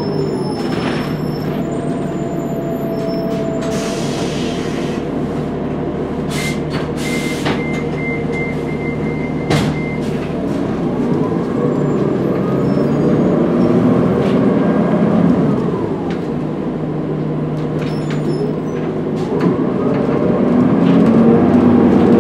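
2016 Gillig Advantage low-floor bus's Cummins ISL9 diesel and Allison B400R automatic transmission running in service. The whine rises and falls with speed, with a short air hiss about four seconds in. A steady high beep lasts about three seconds near the middle.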